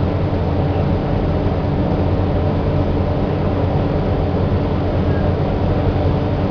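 Steady low drone of a ferry's engines under way, with an even rushing noise of wind and water over it.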